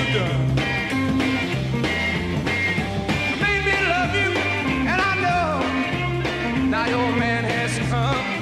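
Rock band playing a blues-rock song live, with a repeating bass figure under a lead line that slides and bends in pitch in the middle and again near the end.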